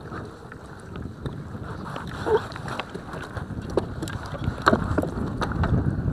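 Wind rumbling on the microphone, with scattered clicks and knocks of gear being handled in a plastic fishing kayak; the sharpest knock comes about three quarters of the way in.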